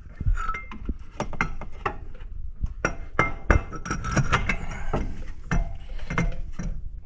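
Repeated metal clinks and knocks from a Can-Am Maverick X3 primary clutch being wiggled and pulled by hand on the crankshaft after being pressed loose with a removal tool.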